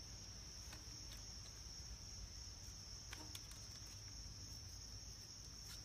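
Faint, steady high-pitched chirring of crickets, with a few faint clicks.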